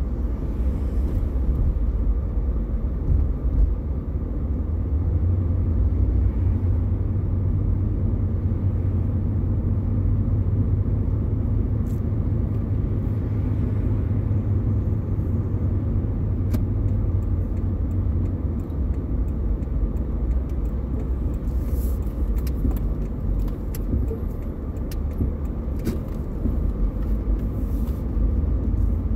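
Car interior while driving: a steady low rumble of engine and tyres on the road.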